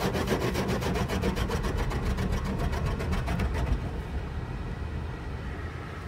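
High-pressure water jets of a WashTec automatic car wash spraying over the car, heard from inside the cabin: a rapid pulsing hiss, about seven pulses a second, that fades out about four seconds in and leaves a low rumble.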